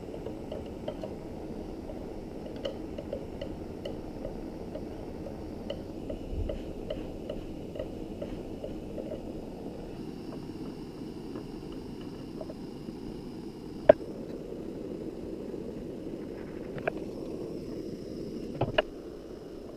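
Handheld butane torch burning with a steady hiss. Over it come light ticks and a few sharper clicks of a steel knife against metal and wood as it spreads melted metal into carved numerals.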